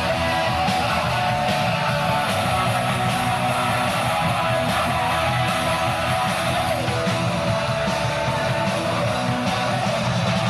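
Punk rock music with strummed electric guitar, loud and continuous.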